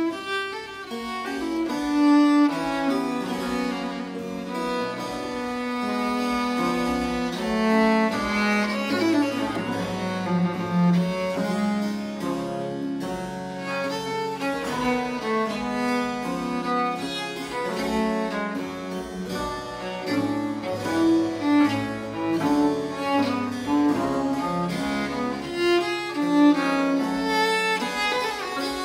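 Baroque chamber music: a viola da gamba playing a bowed melodic line, accompanied by harpsichord and lute.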